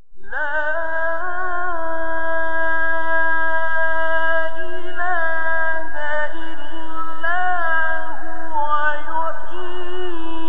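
Melodic Quran recitation by a male reciter in the mujawwad style: a single voice enters about a quarter second in with a rising glide, then holds long, high phrases with ornamented turns of pitch.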